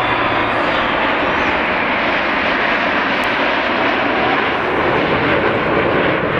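Jet noise from the Canadian Snowbirds' CT-114 Tutor turbojet trainers flying overhead in a nine-ship formation: a loud, steady roar.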